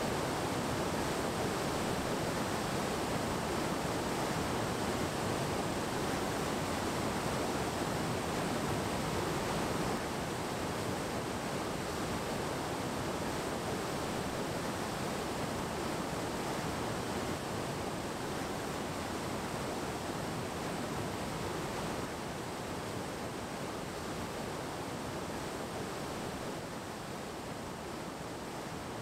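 Steady rushing of a waterfall: the South Beaver River's high, foaming water pouring down rock cascades. It drops a little in level twice, about ten seconds in and again later.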